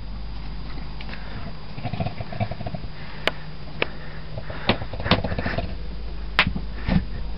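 A man snoring in his sleep, with rasping, rumbling breaths and a few sharp clicks scattered through.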